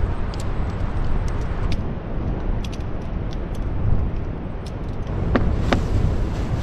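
Steady rumble of ocean surf and wind on the microphone, with scattered light clicks and rustles from tent gear being handled and packed. Two brief sharp sounds come about five and a half seconds in.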